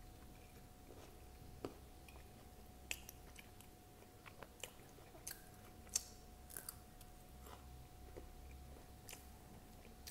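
Close-miked mouth sounds of a person chewing Maharashtrian poha topped with crunchy sev and peanuts: scattered soft crunches and wet mouth clicks, about a dozen in all. The loudest is a sharp crunch about six seconds in, as a green chili is bitten.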